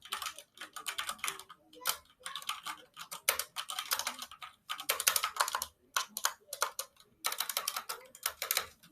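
Fast typing on a SteelSeries Apex TKL mechanical keyboard with red silent switches: rapid key clicks in bursts broken by brief pauses.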